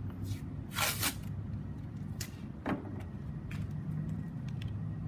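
Adhesive tape being pulled off the roll with a ripping sound about a second in, then shorter tears and rustles of tape. A steady low hum runs underneath.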